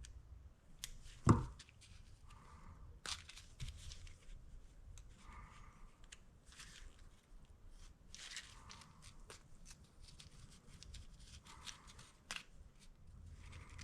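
Hands working small engine parts while swapping the cam-cap O-rings: scattered light clicks, scrapes and rustling, with one sharp knock about a second in.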